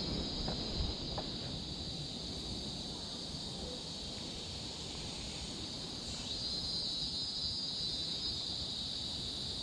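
Steady, shrill insect drone from the forest, a high buzzing that swells louder about six seconds in, over a low rumble.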